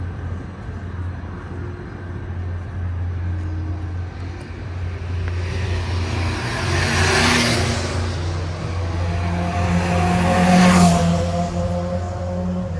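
Two road vehicles passing close by one after the other, the first about seven seconds in and the second about eleven seconds in, each rising and fading away, over a steady low traffic hum.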